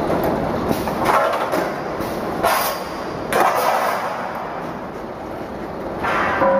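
Steel tube bagging machine running with steel tubes on its conveyor: a steady metallic rumble and rattle, with several louder surges of clatter.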